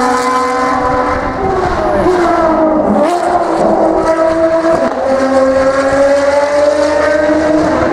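Ferrari V12 track cars, a 599XX and an FXX K, running past at high revs. The engine pitch climbs twice as they accelerate, with a brief drop between.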